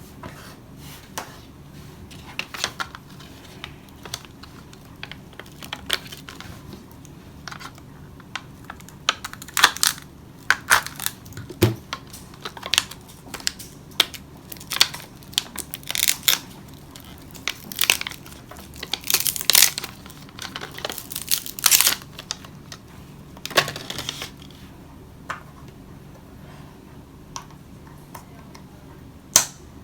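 Handling noise from swapping a key fob's CR2032 coin-cell battery: irregular small clicks and scrapes with crinkling and tearing, busiest and loudest in the middle of the stretch.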